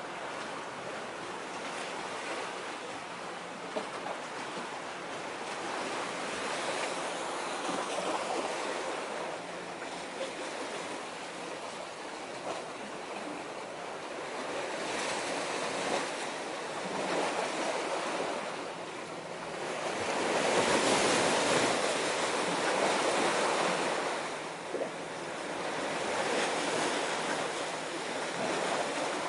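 Sea waves washing against a shore of concrete tetrapods, a rushing hiss that swells and fades every few seconds, loudest about two-thirds of the way through.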